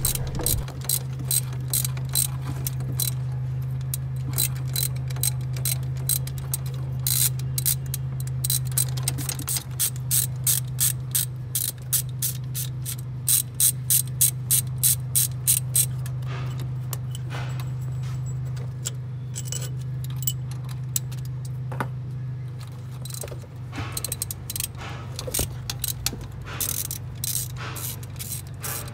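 Hand ratchet wrench clicking in quick runs as the bolts holding an A/C compressor to the engine are worked loose, over a steady low hum.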